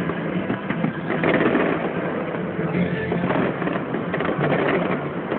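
Aerial fireworks bursting overhead in a rapid, continuous run of pops and crackles.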